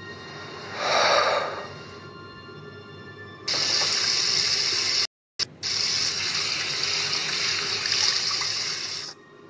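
Kitchen tap running water into a glass, starting about three and a half seconds in, cut off for an instant near five seconds and stopping near nine seconds, over a low, steady music drone. A brief whoosh about a second in.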